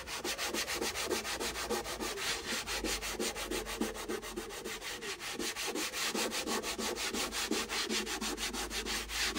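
Abrasive paper rubbed by hand over the bare wooden body of an unvarnished viola: quick, even back-and-forth scraping strokes, about five a second. This is the final hand-sanding of the white instrument before the ground and varnish go on.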